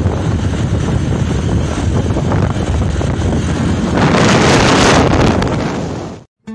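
Wind buffeting a phone's microphone while filming from a moving vehicle: a steady rushing noise that swells louder for about a second past the middle, then cuts off suddenly just before the end.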